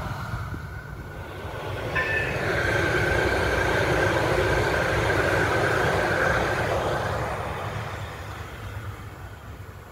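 An old Frankfurt U2-type light-rail train passing close by on the rails, with a brief high tone about two seconds in. A steady high whine runs over the running noise until about seven seconds in, then the sound fades as the train moves away.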